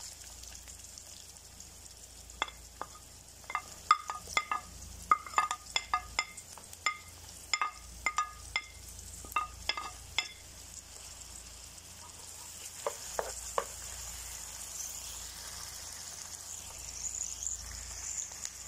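Diced red onion sizzling in hot oil in a frying pan, just added to start the sauté. A wooden spatula taps and scrapes the last pieces off a glass plate, giving a run of sharp ringing clicks from about two to ten seconds in and a few more around thirteen seconds, then only the steady sizzle.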